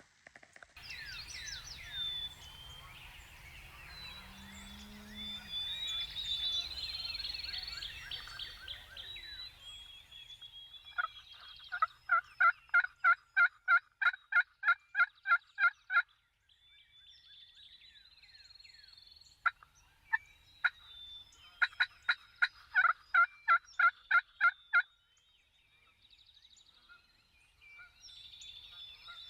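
Turkey yelping: two long runs of loud, evenly spaced yelps, about three a second, starting about twelve seconds in and again about twenty seconds in. Songbirds sing faintly through the first third.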